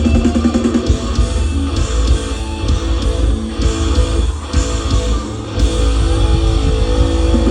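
Live rock band playing an instrumental passage: electric guitar leading over bass and drums, with the low end growing heavier about five and a half seconds in.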